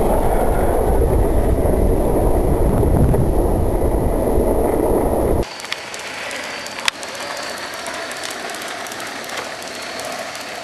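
Longboard wheels rolling fast over pavement while dogs tow the board: a loud, steady rumble. About five seconds in it cuts off abruptly to a much quieter hiss with a few sharp clicks.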